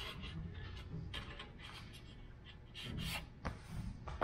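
Soft rubbing and scraping with a few light knocks as a plastic electric-fan shroud is handled and shifted against an aluminum radiator, a little louder about three seconds in.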